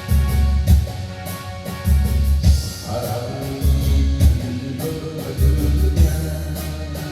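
Korean trot song playing, with a steady, heavy drum-and-bass beat under sustained instrument lines and a singing voice.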